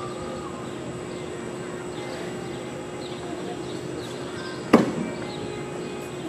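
Indoor arena ambience: a steady hum with faint high chirps. One loud bang sounds about three-quarters of the way through and rings briefly.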